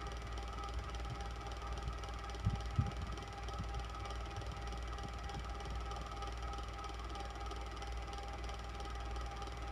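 Electric fan running steadily: a constant whir with a low hum and a couple of steady tones. Two brief low knocks come close together about two and a half seconds in.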